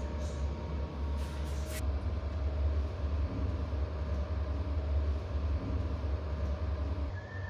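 Steady low rumbling hum, with a few faint clicks in the first two seconds; the deepest part of the hum drops away near the end.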